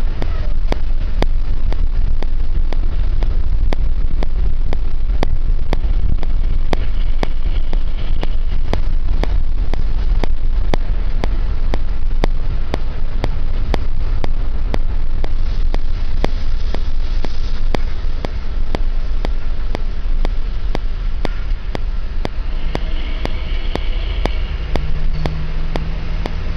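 Steady road and engine noise from a moving vehicle at night, dominated by a deep low rumble that stays even throughout.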